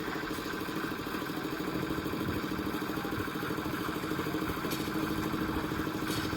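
Concrete mixer's engine running steadily at a constant speed.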